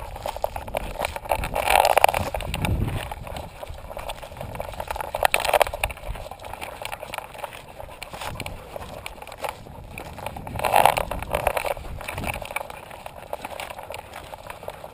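Rubbing and knocking from a camera strapped to a dog's harness as the dog moves around on a dusty dirt trail, with louder scuffs about two, five and eleven seconds in.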